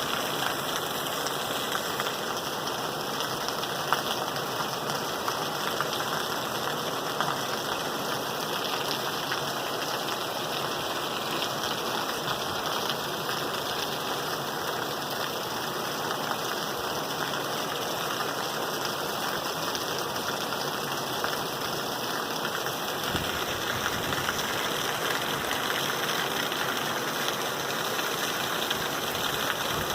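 Steady rain falling, an even hiss with a few louder drop hits.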